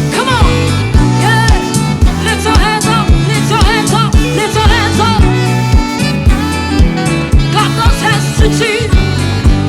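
Live gospel worship band playing a steady beat on drums, bass guitar and keyboards, with a sung melody over it.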